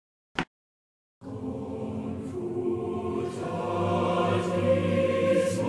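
A single click, then about a second in a choir starts singing, holding long sustained chords.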